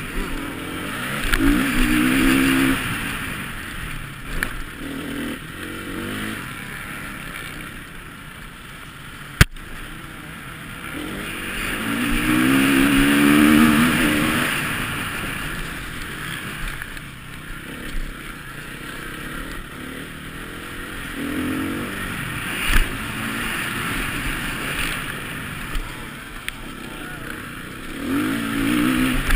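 Motocross bike engine heard from onboard, revving up and down as the rider accelerates and backs off through the track, rising to its loudest about halfway through. A single sharp click about nine seconds in.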